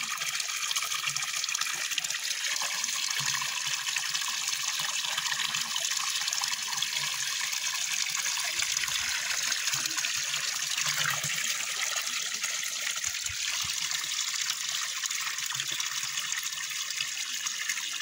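Village fountain's water pouring steadily from a pipe spout into a concrete trough, an even splashing trickle.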